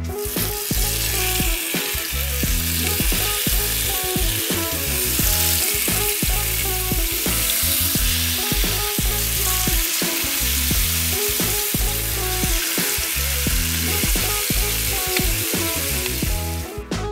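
Raw marinated chicken thighs frying in hot oil in a frying pan: a loud, steady sizzle that starts suddenly as the first thigh goes in and cuts off near the end. Background music with a beat plays underneath.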